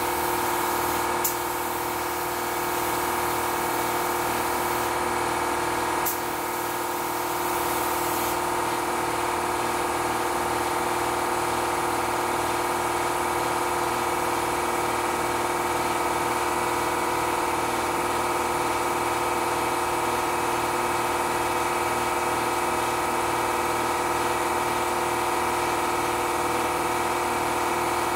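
A 29-gallon air compressor running steadily, a constant hum holding the same tones throughout, supplying air to an LVLP spray gun. Two short sharp clicks come in the first few seconds.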